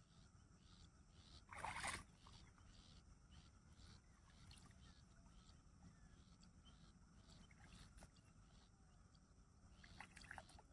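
Quiet wetland ambience with insects chirping steadily, about two or three pulses a second. A short rush of noise comes about a second and a half in, and soft splashing comes near the end as he wades through shallow water.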